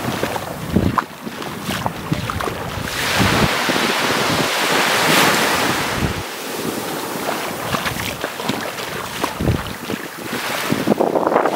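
Small waves breaking and washing up a sandy beach, a steady surf hiss that swells about halfway through, with gusts of wind buffeting the microphone.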